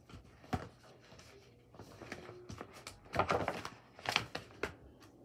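Paper and a school binder being handled: irregular rustling with a few sharp knocks, loudest a bit past the middle.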